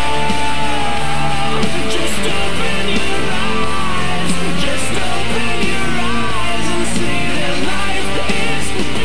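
Rock music with electric guitar and a singing voice, loud and steady.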